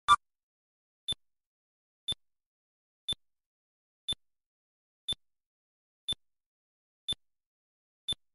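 Sparse electronic sound design: a short high synthetic tick exactly once a second, each tick marking one month passing on the time-lapse counter. Right at the start comes a single louder, lower synthesized blip that marks a nuclear detonation on the map.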